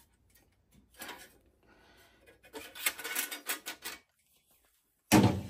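Metal engine parts being handled on a workbench: a light rub, then a run of clinks and rattles, and a sharp knock near the end.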